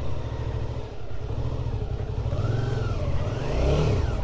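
Motorcycle engine running at low revs, its pitch rising and falling a couple of times in the second half as the throttle is opened and closed.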